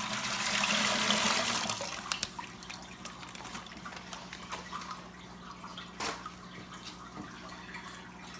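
Water poured out of a fish shipping bag through a mesh aquarium net into a plastic bucket: a splashing pour for about the first two seconds, then it falls off to small drips and light handling noises.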